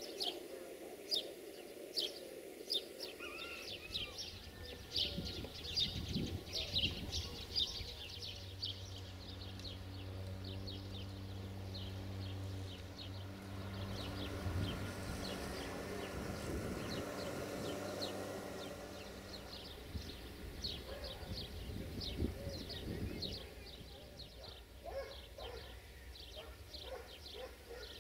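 Small birds chirping over and over in short, sharp notes. A low, steady engine hum comes in about nine seconds in and fades out around twenty seconds.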